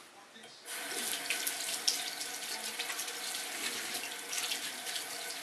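Bathroom faucet turned on about a second in, water running steadily into a pedestal sink while hands are rinsed under the stream.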